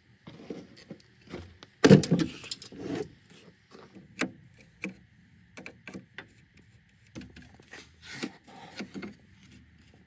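Clinks, clicks and knocks of hand tools and parts being handled in a Jeep engine bay, with a louder, longer clatter about two seconds in.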